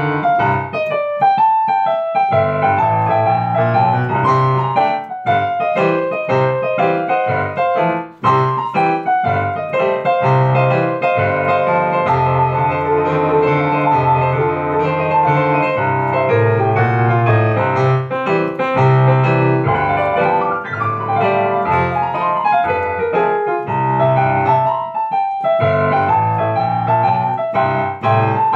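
Solo piano played with both hands: a steady bass line under chords and a melody. There is one brief break in the playing about eight seconds in.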